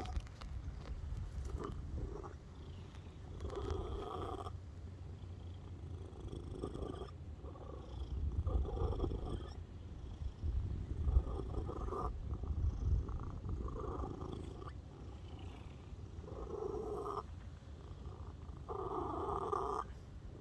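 Domestic cat purring steadily, with a short meow breaking in every few seconds, several times in all.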